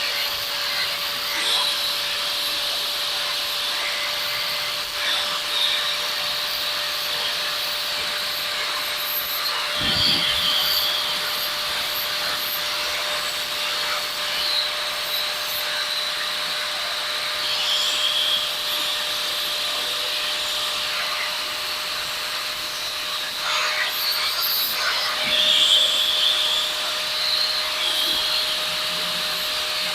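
Small power buffing tool running at a steady whine while a silver fork, cut into an elephant charm, is buffed against it, with brief louder scraping contacts every so often.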